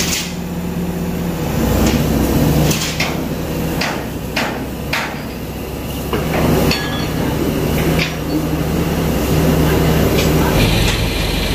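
Hammer striking metal: about eight sharp, irregularly spaced blows, most of them in the middle of the stretch. A diesel engine, likely the excavator's, runs steadily underneath.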